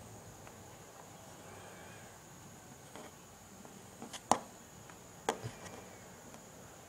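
A few sharp taps and knocks of fingers and small pieces of polymer clay on a hard desktop, the loudest just after four seconds in, over a faint steady hiss.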